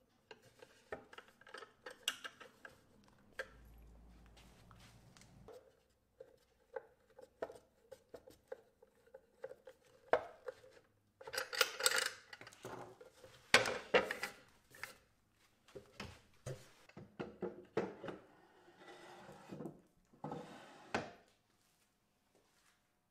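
Scattered light clicks, knocks and metallic clinks of a wooden drawer and small metal hardware being handled, as a black metal drawer pull is fitted to the drawer's front. The knocking is busiest about halfway through.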